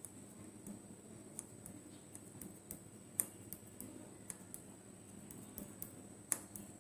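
Samsung front-load washing machine running faintly with a low steady hum, broken by irregular light clicks and ticks, the sharpest about three seconds in and again near the end.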